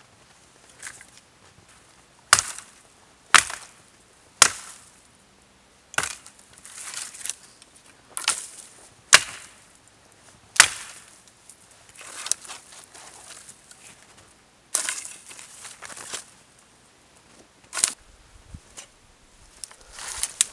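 Dry dead branches cracking sharply as they are snapped and broken off a brush pile by hand, about nine loud cracks at uneven intervals, with rustling and scraping of twigs between them.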